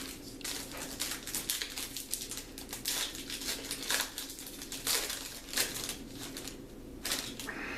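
Trading card pack wrapper crinkling and tearing as a pack is opened by hand: a dense run of irregular crackles with louder rips at about three, four, five and seven seconds in.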